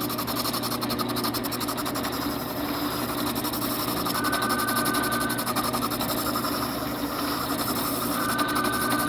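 Ridgid drill press running with an aluminum-oxide sanding drum spinning in its chuck, a steady motor hum. A higher tone rises over it twice, about four seconds in and again near the end.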